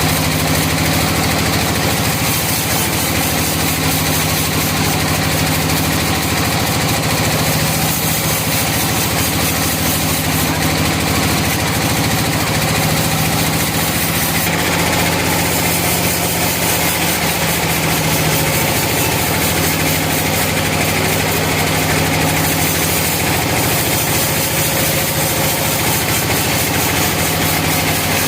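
Sawmill engine running steadily at a constant speed, with a slow rise and fall in its hum every few seconds.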